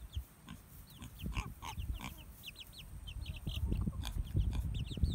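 Baby chicks peeping: many short, high cheeps in quick succession, over low grunts from a pig.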